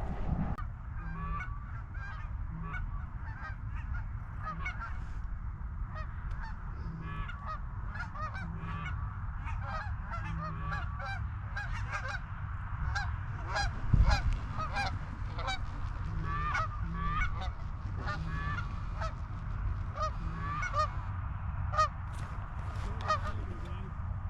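A flock of Canada geese honking over and over as they fly in, many short calls overlapping, over a steady low rumble. A dull knock about halfway through.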